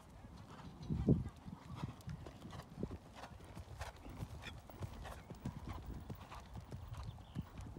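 A horse's hoofbeats on a sand arena surface, a run of soft thumps about two a second, with one heavier thump about a second in.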